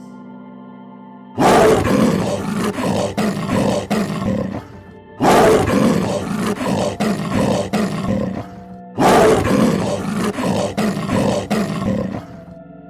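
A large animal roaring three times, each roar long and loud and breaking up into rough pulses, over steady ambient background music.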